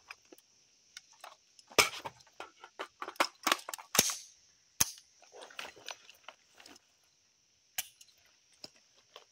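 A string of sharp metallic clicks and clacks from a dry-fire reload and transition drill with an AR-15 rifle and a Glock 19 pistol: triggers snapping on empty chambers and magazines being swapped, with no shots fired.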